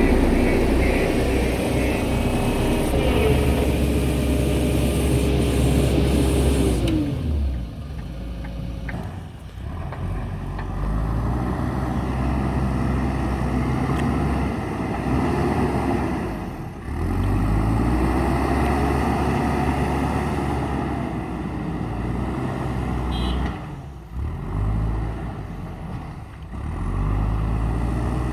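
JCB backhoe loader's diesel engine working under load, loud and steady with a high whine for the first seven seconds or so, then dropping lower and revving up and down in pitch several times as the machine works.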